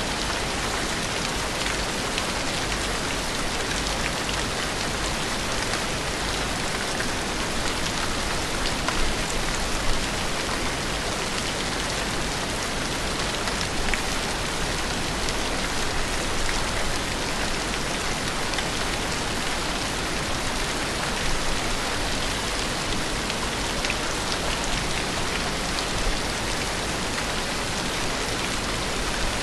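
Steady rain falling: an even hiss with a scatter of small drop ticks, a little louder for a moment about nine to ten seconds in.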